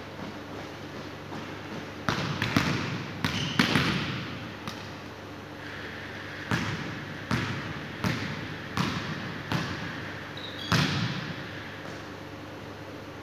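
A ball hitting the hard floor and walls of a large indoor sports hall, each hit echoing: a quick cluster of hits two to four seconds in, then single hits about every three-quarters of a second, with a last loud one near eleven seconds.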